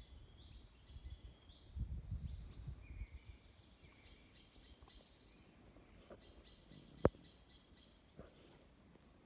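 Small birds singing in short repeated chirping phrases, with a low rumble about two seconds in and a single sharp click about seven seconds in.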